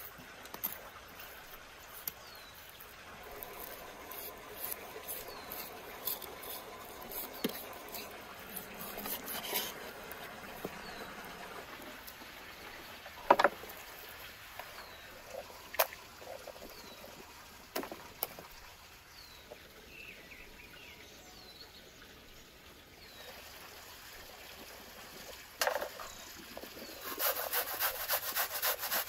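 Kitchen food-preparation sounds: faint handling noise broken by scattered clicks and knocks of utensils. Near the end comes a fast, even run of scraping strokes, about four a second.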